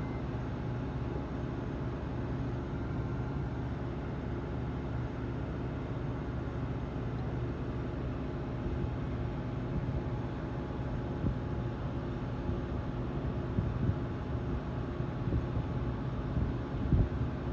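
Steady low mechanical hum, with a few soft knocks toward the end.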